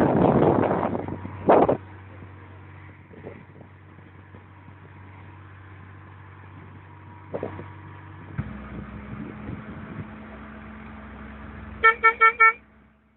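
Vehicle horn giving four quick toots near the end, over a steady engine hum. A loud rush of noise fills the first second or so.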